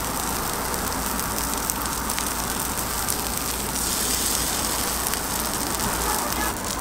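Egg and shredded-ham toast fillings frying on a flat-top griddle, sizzling steadily over a low, constant hum.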